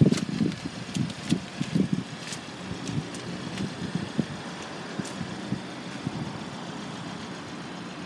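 Steady outdoor background rumble, with irregular dull bumps in the first couple of seconds from a handheld phone being moved and handled.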